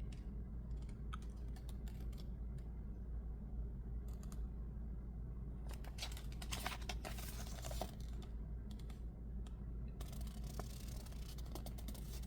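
Faint handling noise of paper and plastic toy packaging: scattered small clicks and rustles, with a denser stretch of crinkling about ten seconds in.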